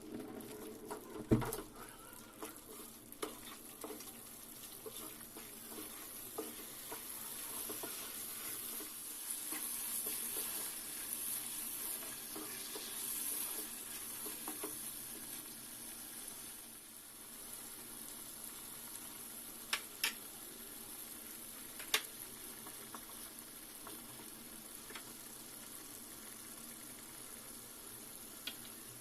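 Masala frying and sizzling in a pan while being stirred, with a few sharp clinks of a spoon against the pan: one about a second in and two around twenty seconds in.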